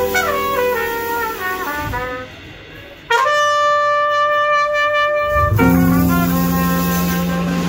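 Jazz quartet of trumpet, archtop electric guitar, upright double bass and drums playing. The trumpet plays a falling run, drops back briefly, then comes in loud on a long held high note for about two and a half seconds, after which low notes from the band ring on steadily.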